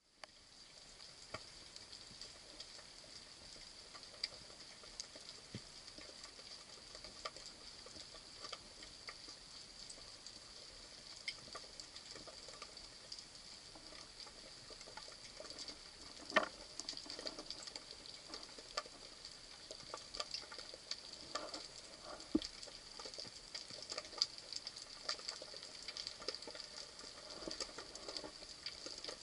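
Faint underwater crackle of many small, irregular clicks over a steady high hiss, with one louder knock about sixteen seconds in.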